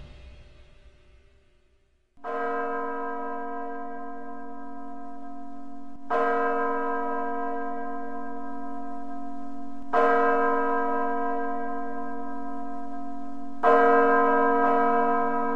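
A deep, church-like bell struck four times in an orchestral arrangement, the strokes about four seconds apart, each one ringing on until the next. Before the first stroke the preceding music dies away into a brief hush.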